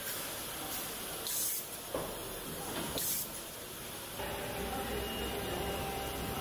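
Car-body assembly line ambience: short bursts of compressed-air hiss from pneumatic tooling, twice, with a click between them, over a steady factory hum. A little past halfway the background changes to a steadier machinery drone with faint held tones.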